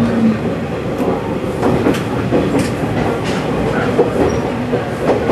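KiHa 120 diesel railcar running over station pointwork, heard from inside the car: a steady rumble with irregular wheel clacks as the wheels cross rail joints and points.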